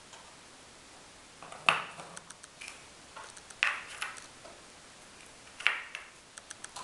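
Spent brass pistol cartridge cases clinking as they are picked from a plastic tray and set into a plastic ammo box. Three sharp metallic taps with a short ring, about two seconds apart, with lighter clicks between them.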